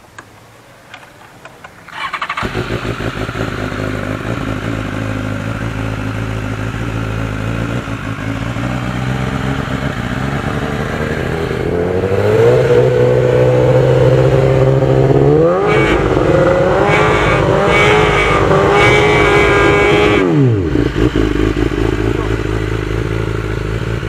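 Yamaha YZF-R1 superbike race engine starting about two seconds in and idling, then raised to a held higher rpm and pushed higher again for a few seconds before dropping sharply back to idle: an exhaust noise test at scrutineering.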